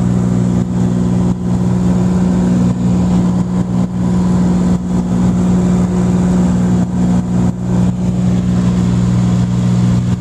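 Cessna 182's single piston engine and propeller droning steadily while climbing after takeoff, heard from inside the cabin.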